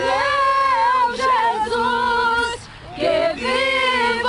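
Voices led by a woman singing a worship song in long, held phrases, with a brief pause between phrases about two-thirds of the way through.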